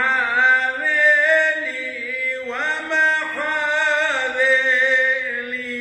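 A man chanting a Syriac church hymn solo, in long melismatic phrases with ornamented, wavering notes that slide between pitches. Near the end he settles into a long held note.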